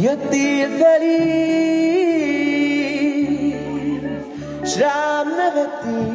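A man singing into a microphone, holding notes that waver, over sustained chords and bass notes from a Korg electronic keyboard.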